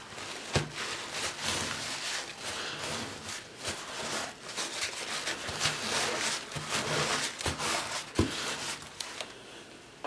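Crumpled paper towel rubbed back and forth over a plastic stencil on a water-sprayed, ink-covered paper page, a rustling scrape with a few light knocks, wiping the wet Distress ink off through the stencil. It stops about a second before the end.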